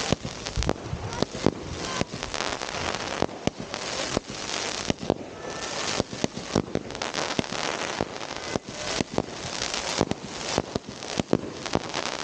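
Fireworks firing shot after shot from the ground: irregular sharp bangs and pops, several a second, over a steady hiss that swells and fades.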